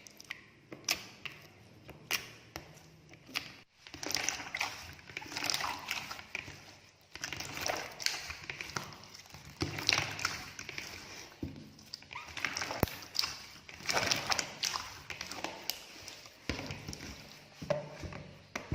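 Clear, runny water slime being worked by hand or in a container: irregular wet squishing and dribbling with frequent sharp little clicks and pops.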